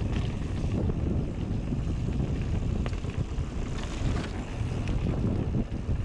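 Wind buffeting the microphone of a mountain bike's camera as it descends a dirt trail at speed, a steady low rushing rumble mixed with the tyres running over dirt and a few faint ticks of grit and rattle.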